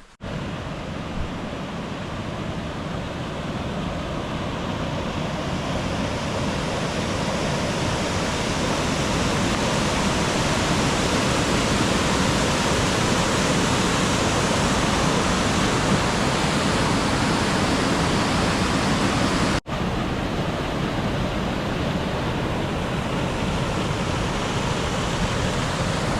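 Steady rush of water from a waterfall or cascading mountain creek, an even noise that grows louder over the first half and briefly cuts out about twenty seconds in.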